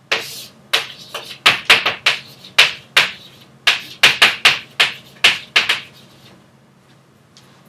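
Chalk writing on a blackboard: a quick run of about fifteen sharp taps and short strokes as letters are written, stopping about six seconds in.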